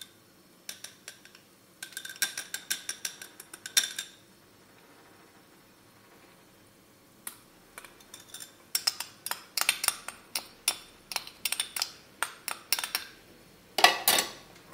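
A metal spoon clinking rapidly against a small glass bowl and a wire-mesh sieve, tapping cocoa powder through the sieve onto cake batter. There are two runs of quick, ringing taps, and a louder clatter just before the end.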